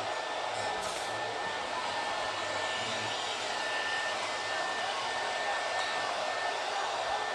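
Dense, steady applause from a large audience, a continuous even wash of clapping with no individual claps standing out.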